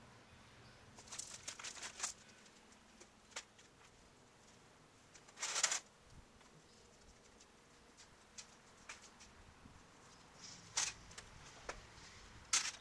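Scattered crackles and pops from the fire burning in a homemade scrap-built gasifier, in a cluster about a second in and again near the end, with one short louder burst about five and a half seconds in.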